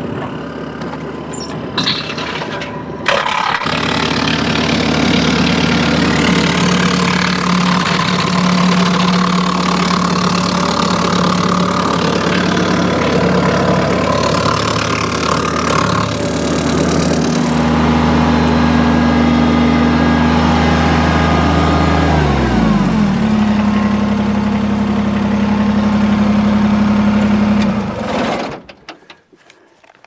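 Kubota compact tractor's diesel engine running at a steady speed with the PTO-driven Woodland Mills WC46 wood chipper spinning empty behind it. About 22 s in the pitch falls as it is throttled down, it runs on at the lower speed, and it shuts off suddenly near the end. The first few seconds hold a noisier sound without a steady pitch.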